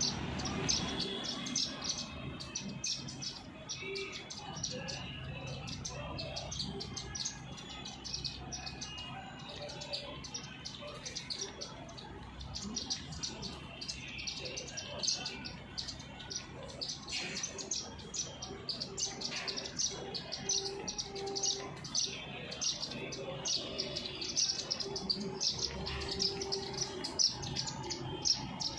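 A flock of small wild birds chirping busily, with rapid, overlapping short high chirps throughout.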